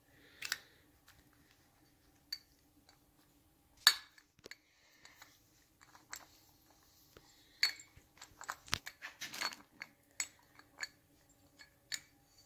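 Scattered light metallic clicks and clinks of small steel parts, the rocker arm, spindle and washers, being handled and worked into a Triumph 650 aluminium rocker box. There is one sharper click about four seconds in and a busier run of clicks in the second half.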